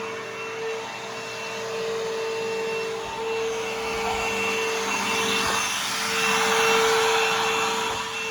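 Bissell CleanView Helix bagless vacuum cleaner running, a steady motor whine over the rush of air, the rushing growing louder about two-thirds of the way in.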